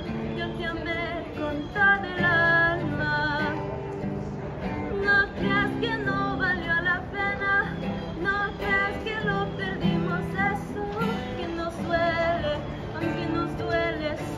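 A woman singing a slow melody with vibrato on the held notes, accompanied by an acoustic guitar.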